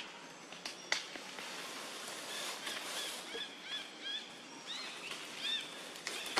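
A run of short, high-pitched animal chirps repeating about three times a second for a few seconds, after a couple of sharp dry crackles about a second in.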